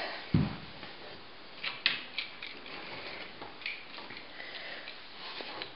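Handling noise as a small plastic OO gauge model wagon is picked up off a wooden floor: a low thump near the start, then a few light clicks and rustles.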